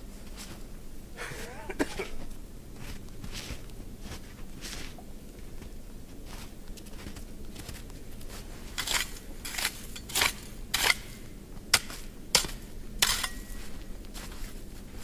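Titanium shovel chopping and scraping at snow and brush, with scattered crunches and then a run of sharp blade strikes about nine to thirteen seconds in. The last strike leaves a short metallic ring.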